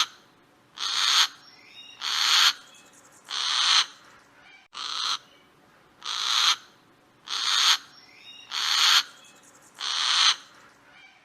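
An animal's harsh, hissing call, repeated nine times at about one every second and a quarter, with faint short chirps between the calls.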